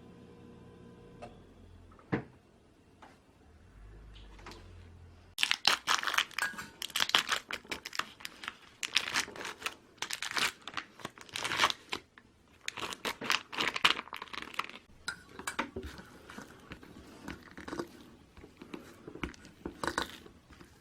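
Crinkling and rustling of plastic or paper packaging being handled, in repeated quick bursts from about five seconds in, after a faint low hum.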